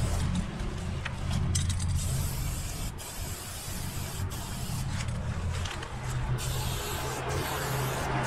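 Aerosol spray paint can hissing as paint is sprayed onto a wall, in long bursts broken by a few short pauses between strokes. A low rumble runs underneath.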